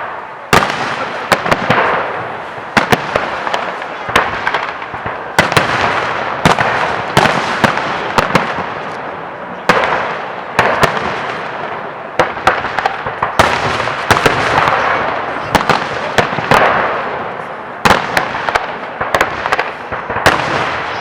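Fireworks display: a rapid series of loud aerial shell bursts, one after another every second or less, each followed by crackling as the shells break and their echo fades.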